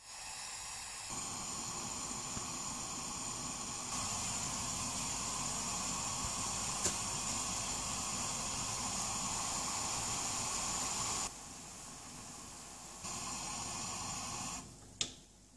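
Steady hiss of a pot of beer wort heating on a gas burner and coming to the boil, foaming with hops added. The level changes abruptly several times, stepping up about a second in and again at four seconds, then dropping and rising near the end.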